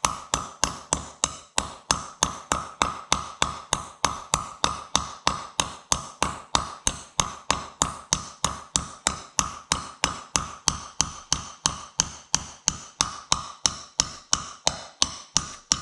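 Steady, light hammer taps driving a new universal joint bearing cap into the yoke of a truck's front axle shaft, about three to four taps a second, each ringing briefly. The cap is going in easily.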